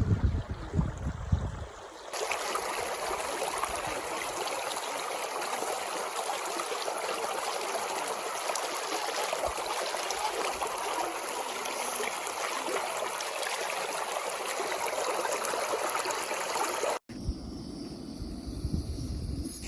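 Water of a stream running, a steady even rush. Wind rumbles on the microphone for the first two seconds and again after a sudden cut near the end.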